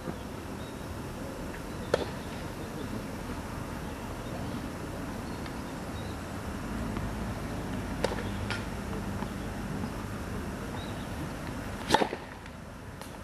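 Tennis ball being hit during a rally: sharp pops of ball on racket or court. There is one early, two close together midway, and the loudest near the end, over a low steady rumble.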